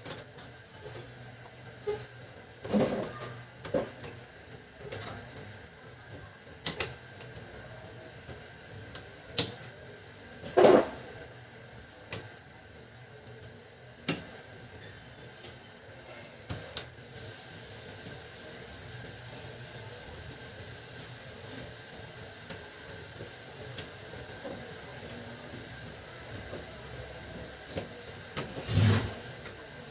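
Scattered clicks and knocks of a laser printer's plastic parts being handled and fitted, the loudest about a third of the way in and near the end. A steady hiss sets in a little past halfway.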